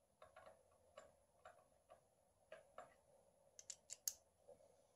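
Faint, irregular light clicks of small metal hand tools being handled, with a quick run of about four sharper clicks near the end.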